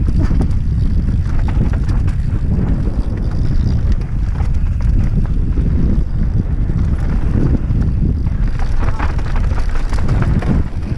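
Wind buffeting a helmet-mounted camera's microphone during a fast downhill mountain-bike descent, with tyres crunching over loose dirt and stones and frequent clicks and knocks from the bike on the rough ground.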